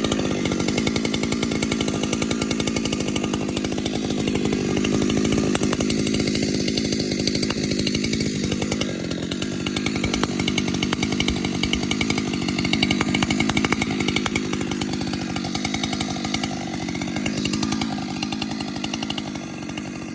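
Two-stroke gasoline chainsaw running at high speed, holding a steady pitch, then easing off a little near the end.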